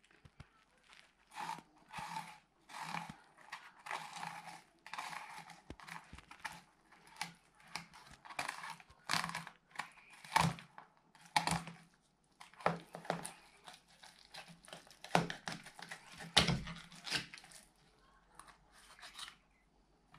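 Kitchen knife cutting a fillet away from a small bream's backbone and rib bones: irregular scraping and cutting strokes of the blade through flesh and over bone, with the fish shifting on a plastic tray.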